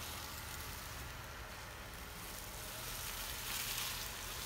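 Jeep Rubicon driving on loose ground: a low engine rumble under a steady hiss of the tyres, which grows louder about three and a half seconds in.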